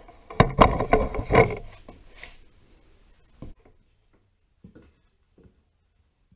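Sharp clattering knocks of hard objects being handled for about a second, then a few light single knocks or taps. This is handling of things on a stone countertop while the wall is checked for a stud.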